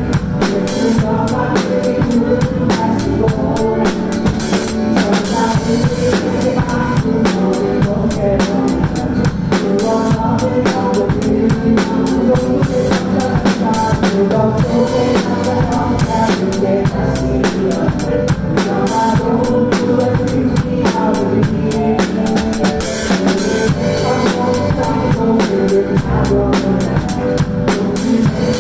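Drum kit played along to a recorded worship song, with kick drum, snare and steady cymbal strikes keeping the beat over the song's melody and chords.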